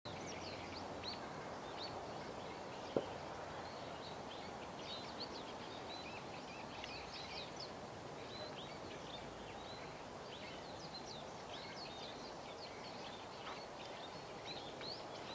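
Small birds chirping and calling over and over, many short notes through a steady background hiss, with one sharp click about three seconds in.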